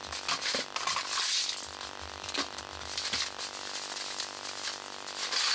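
Plastic trash bag rustling and crinkling as it is handled in a trash bin, with irregular crackles.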